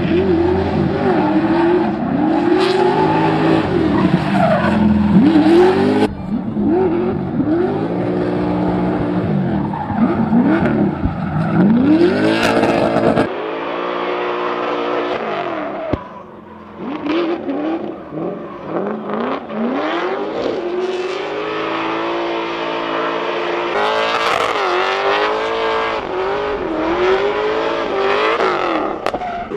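High-compression, cammed 7.0-litre LS7 V8 in a Nissan 350Z revving up and down over and over through drifts, with tyre squeal. The sound changes abruptly a few times.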